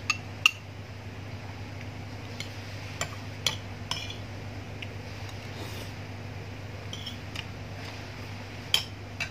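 Metal spoon clinking against a ceramic soup bowl and rice plate while eating, a few sharp separate clinks, the loudest near the start and near the end, over a steady low hum.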